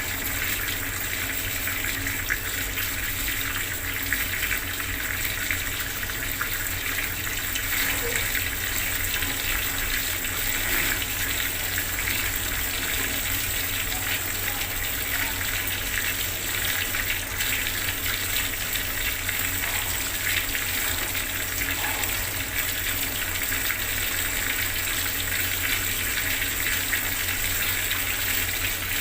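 Bathroom water tap running steadily, its stream splashing into the basin below.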